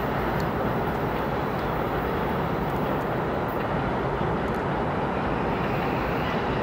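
Double-stack container freight train rolling past, a steady even rumble of wheels and railcars.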